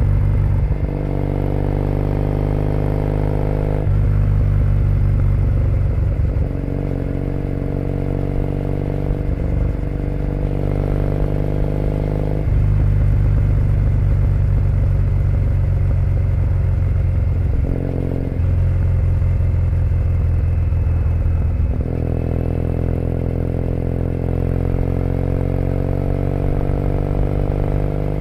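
2008 Triumph Bonneville T100's air-cooled parallel-twin engine through aftermarket Predator exhaust pipes, heard from the rider's seat on the move. The engine note rises several times as the bike pulls, with steadier, lower-pitched stretches in between, most of all in the middle.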